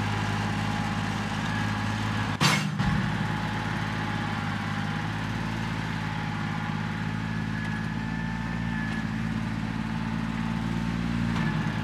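Tractor diesel engine running steadily at a constant speed, a low even hum with a faint whine above it. A single short knock comes about two and a half seconds in.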